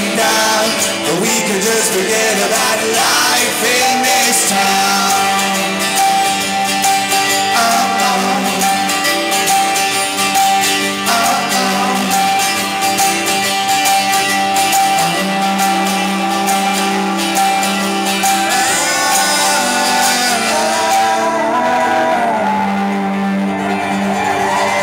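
Live rock band playing the end section of a song: guitars with a long sustained high note held over them, and a voice singing in short phrases now and then.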